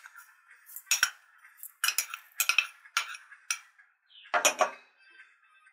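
A spoon scraping and clinking against an enamel bowl as oat flakes are spooned in: about six short, sharp strokes, the loudest about four and a half seconds in.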